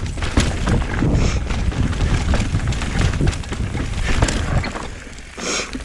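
Wind buffeting the microphone over the rumble and rattle of a mountain bike rolling down a rough dirt trail, with many small clicks and knocks from the bike.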